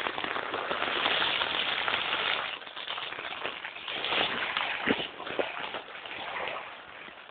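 Heavy rain falling, a dense steady hiss with scattered sharp drop hits, louder for the first couple of seconds and quieter after.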